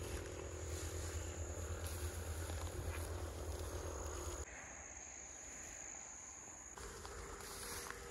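Insects, crickets by their steady high trill, calling. A low mechanical hum under them stops abruptly about four and a half seconds in and comes back near the end.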